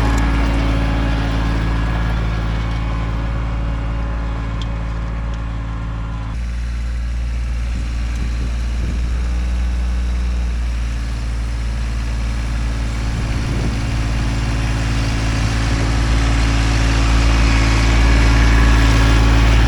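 Kubota tractor's diesel engine running steadily while pulling a one-bottom plow through dry, hard ground. The sound shifts abruptly about six seconds in, and the engine grows louder toward the end.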